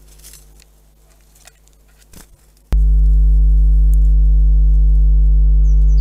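Faint light ticking, then about two and a half seconds in a loud, steady low hum with evenly spaced overtones starts suddenly and holds at one pitch. A few faint, short, high bird chirps sound near the end.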